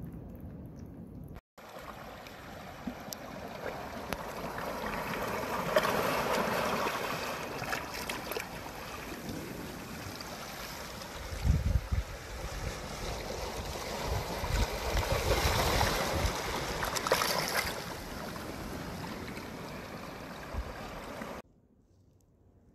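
Sea water washing and surging over a rocky reef flat, in slow swells, with wind buffeting the microphone. It starts suddenly a second or so in and cuts off suddenly near the end.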